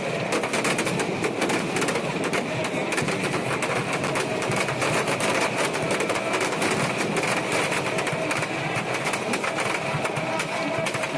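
Firecrackers packed inside a burning Ravana effigy going off in a dense, irregular crackle of rapid pops that keeps up with no let-up.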